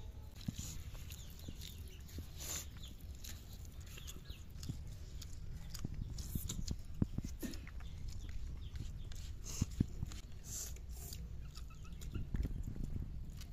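Chickens clucking now and then over a steady low outdoor rumble, with scattered small clicks.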